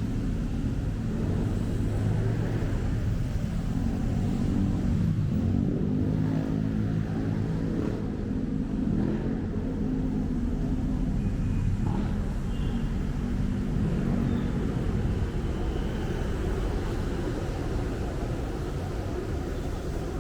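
Busy city road traffic: vehicle engines running and passing over a steady low rumble, with an engine's hum rising and fading through the middle.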